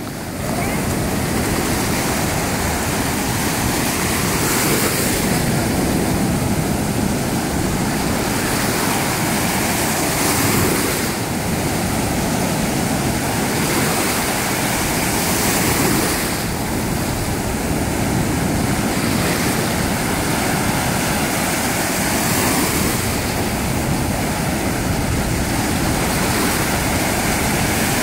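Strong sea surf breaking and washing up a sandy shore as a steady rush of foaming water, swelling with a new breaker every five or six seconds.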